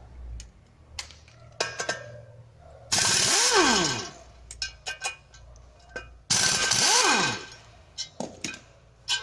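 Power wrench loosening bolts on a car's front brake and hub assembly in two bursts of about a second each. Each burst ends in a falling whine as the tool spins down. Short metallic clicks and clinks of tools and parts come between the bursts.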